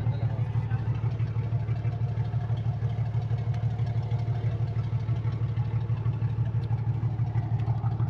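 A river ferry's diesel engine running steadily, a low drone with a fast, even throb.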